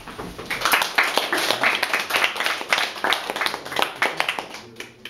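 A small audience applauding: hand clapping that starts about half a second in and dies away near the end.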